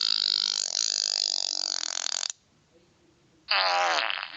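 Cartoon stomach growling, a loud, gurgling pitched rumble: one long growl of about three seconds, then a shorter one near the end that falls in pitch.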